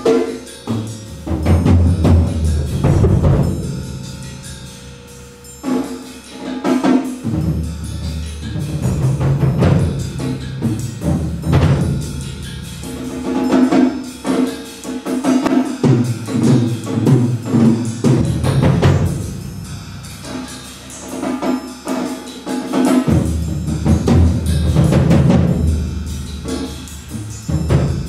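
Percussion quartet in a free improvised passage: a busy mix of struck drum strokes and tapped pitched notes, with low drum sounds swelling and fading in waves.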